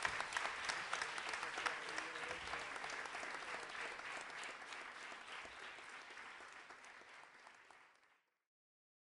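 Audience applauding, a dense patter of many hands clapping that slowly fades and stops about eight seconds in.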